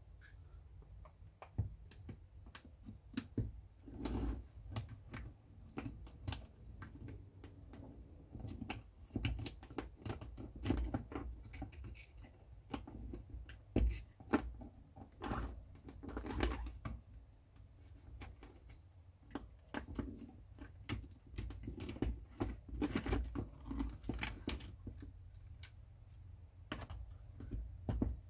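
Plastic fuse box parts being handled: irregular light clicks and taps, over a low steady hum.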